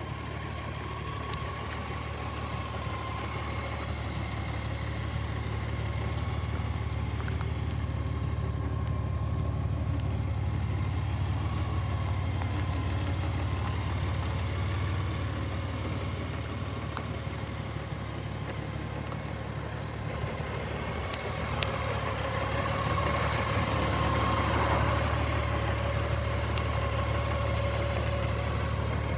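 2018 Honda Gold Wing Tour's 1.8-litre flat-six engine idling steadily, a low even running sound with a faint steady whine over it. It grows somewhat louder about three-quarters of the way through.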